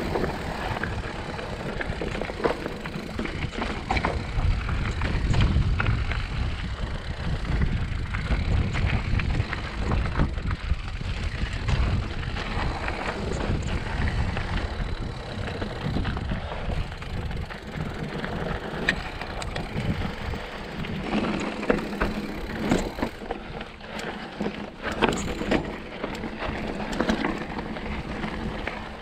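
Mountain bike rolling over rocky dirt singletrack: tyres crunching on dirt and stones and the bike rattling and clicking over bumps, with wind rumbling on the microphone.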